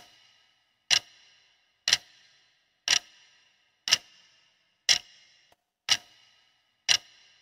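Countdown clock ticking once a second, a steady run of sharp ticks timing the answer period of a quiz question.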